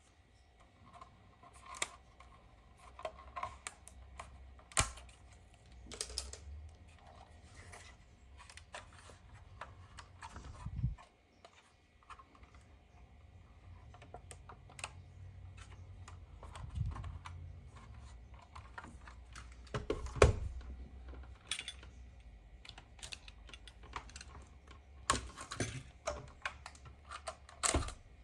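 Irregular light clicks and taps from hands handling a 1:18 diecast model car, over a faint low handling rumble.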